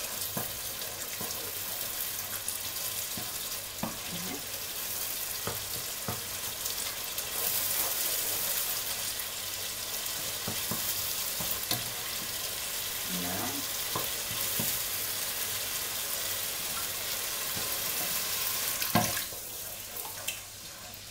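Tomato sauce sizzling steadily in a pot as a wooden spoon stirs it, with occasional knocks of the spoon against the pot. Near the end there is a sharp knock, and the sizzling dies down.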